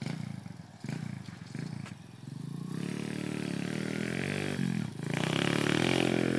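Thumpstar 125 pit bike's 125cc four-stroke single-cylinder engine revving on a dirt track. It is faint at first, then the revs climb from about halfway, drop off for a moment, and come back louder near the end as the bike comes closer.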